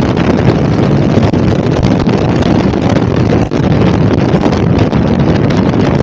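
Motorcycle ridden at road speed: heavy wind buffeting on the bike-mounted camera's microphone over the steady drone of the engine.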